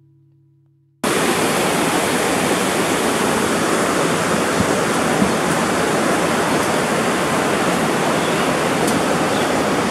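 Waterfall: a loud, steady rush of falling water that starts abruptly about a second in, after the last faint fade of organ music.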